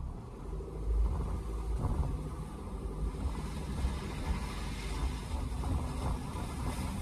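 Car engine and tyre noise heard from inside the cabin while driving on a wet, slushy street. The low rumble grows louder about a second in as the car picks up speed, and a light tyre hiss comes in later.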